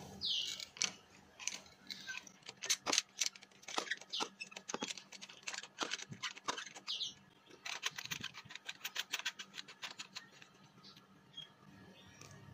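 Spark plug being unscrewed from the cylinder head with a T-handle spark plug socket and extension: irregular metallic clicks and ticks with a couple of short squeaks, and a fast run of ticks about eight seconds in as the plug spins out, dying away near the end.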